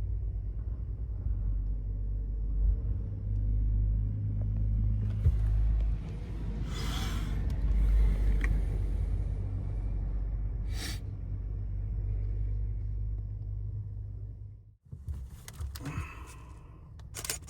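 Truck engine running with a steady low rumble, heard from inside the cab, with a hiss about halfway through and a shorter one a few seconds later. Near the end the rumble cuts off suddenly and a run of sharp clicks follows.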